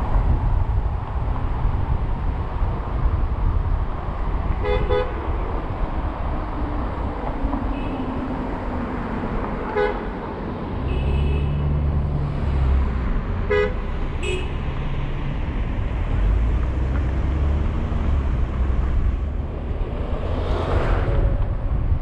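Steady road and engine rumble of a car driving through city streets, with several brief car-horn toots spread through it: one about five seconds in, one about ten seconds in, and two close together around fourteen seconds in. A short swell of rushing noise comes near the end.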